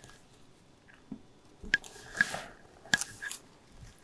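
Fingers pressing a canvas down onto a board coated with wet PVA glue, giving a few short sticky clicks and squishes about a second apart.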